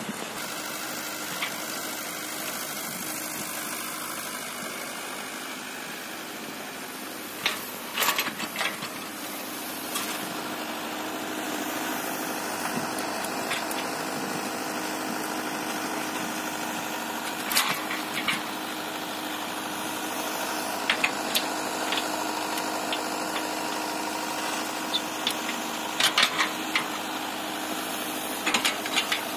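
Komatsu PC78US-11 compact excavator's diesel engine running steadily under hydraulic digging load, getting louder about ten seconds in. Scattered sharp knocks come as the bucket works the rocky soil.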